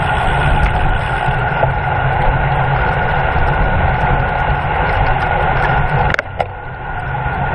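Wind and road noise on a camera carried on a racing bicycle at speed: a steady rush with a low rumble. It dips briefly with a click about six seconds in.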